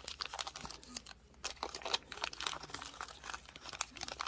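Small clear plastic bead bag crinkling and crackling as fingers work its top open, in a quick run of small crackles.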